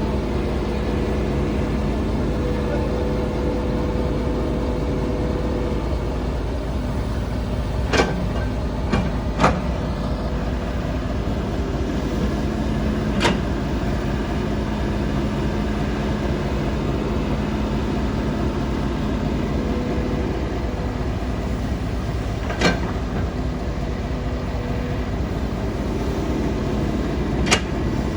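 Heavy earthmoving machine's diesel engine running steadily during road-cutting work, with a handful of sharp knocks or clanks now and then.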